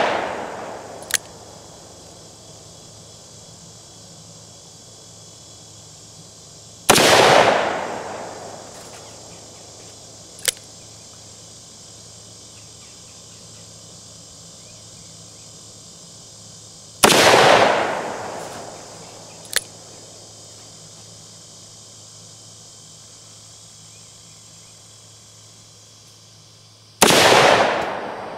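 Ruger Redhawk revolver firing .44 Magnum rounds: three loud shots about ten seconds apart, each dying away over a second or two. It opens on the fading echo of a shot fired just before. A short sharp click comes a couple of seconds after most of the shots.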